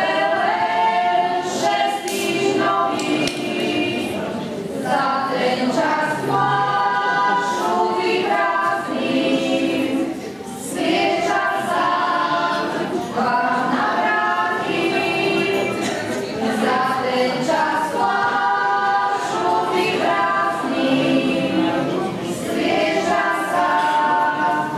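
A group of voices singing a slow song together without instruments, in long held notes with short breaks between phrases.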